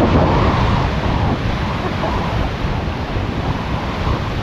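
Strong wind buffeting the microphone in a steady, low rumble over the rush of surf breaking on the beach.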